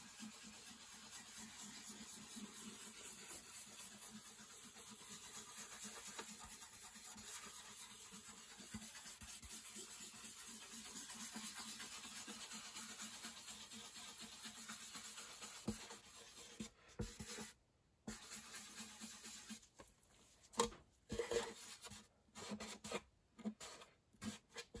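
A cloth pad wet with alcohol dye rubbing and dabbing on the wooden top of an acoustic guitar: faint, steady scrubbing for most of the time, breaking into short separate strokes in the last several seconds.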